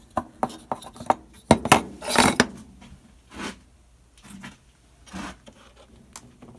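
Small metal parts and screws clicking and clinking as a plasma TV is taken apart by hand: a quick run of sharp clicks with a short scrape in the first couple of seconds, then a few softer knocks and rubs.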